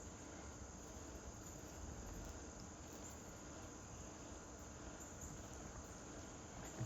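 Faint, steady outdoor insect chirring with no distinct events.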